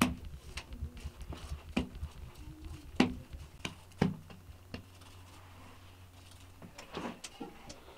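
Hands patting and setting down soft balls of naan dough on a floured cloth: a string of short, sharp slaps about once a second, the loudest near the start and about three seconds in.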